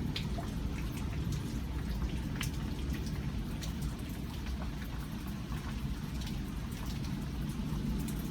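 Thunderstorm rain falling steadily, with scattered individual drops ticking sharply close by, over a steady low rumble.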